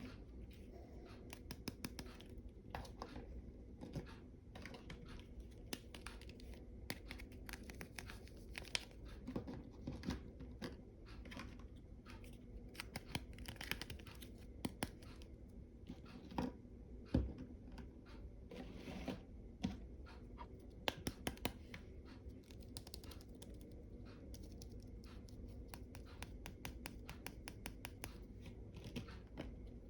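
Small clicks, scratches and rustles of close-up handling, like plastic packaging and small toy pieces being opened and fiddled with, scattered irregularly with a few sharper clicks.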